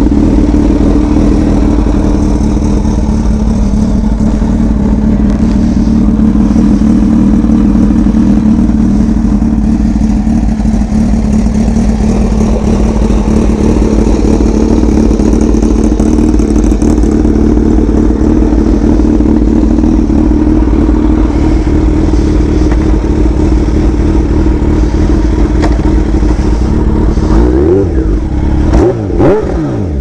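Kawasaki Ninja H2's supercharged inline-four engine running loudly at a steady pitch, then revving up and down in several quick blips near the end.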